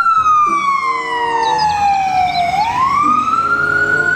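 Ambulance siren sounding a wail: one long tone that slowly falls in pitch over about two and a half seconds, then rises back up.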